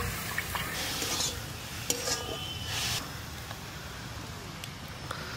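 Greens frying in mustard oil in a wok (kadai), sizzling as a spoon stirs and scrapes through them, with short knocks of metal on metal. Water swishes and pours as broken rice is washed in an aluminium bowl and the wash water is tipped off.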